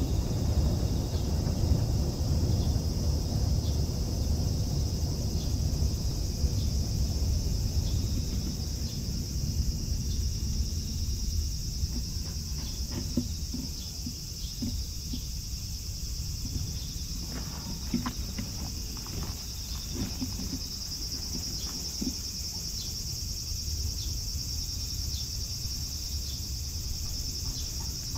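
A steady high-pitched chorus of insects chirring, over a low rumble that eases after about ten seconds, with a few faint rustles and taps in the middle.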